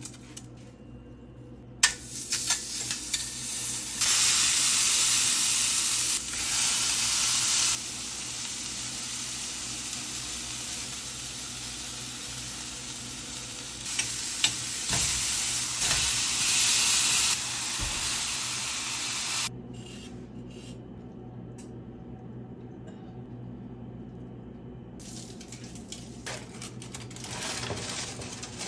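Beef burger patties sizzling as they fry in a stainless steel skillet. The sizzle starts about two seconds in, swells and eases in stretches with a few sharp clicks, and cuts off abruptly about two-thirds of the way through.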